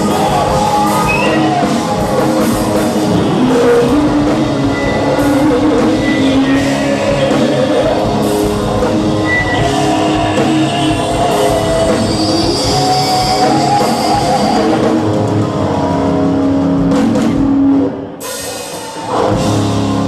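Loud rock music with drums and guitar, dropping away briefly near the end before coming back in.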